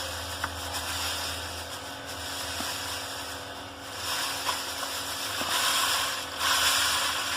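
Granular dishwasher salt pouring from its pack into the dishwasher's salt reservoir, a steady grainy hiss that swells twice in the second half.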